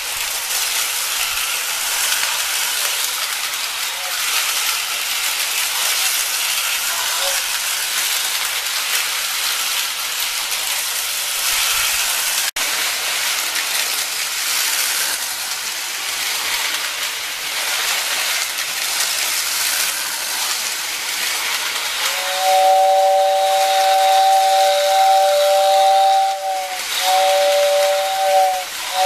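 Lionel postwar 675 toy steam locomotive running on tinplate track: a steady hissing running noise from its motor and wheels. About two-thirds of the way in, its 6466WX whistle tender blows a two-tone whistle for about four seconds, then once more briefly near the end.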